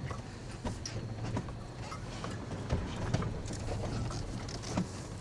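Toyota FJ Cruiser's engine running low and steady at slow speed, with irregular clicks, knocks and rattles on top.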